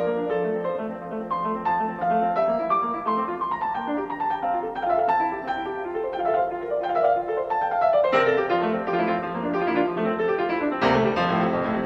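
Background piano music: a steady flow of quick, repeated notes, with a falling run about eight seconds in and fuller, louder chords near the end.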